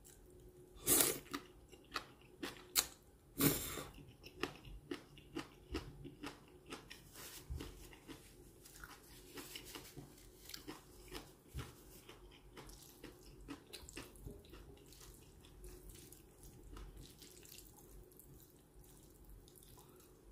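Wet mouth sounds of eating jjajang ramen: two loud slurps of the black-bean-sauce noodles about a second and three and a half seconds in, then a long run of wet chewing and smacking clicks that grows softer in the second half.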